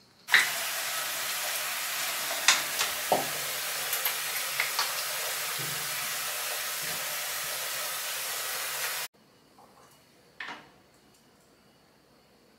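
Hair dryer switched on, blowing steadily for about nine seconds with a few small knocks over it, then switched off suddenly.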